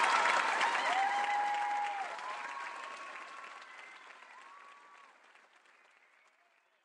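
Theatre audience applauding, fading out steadily to silence over about five seconds.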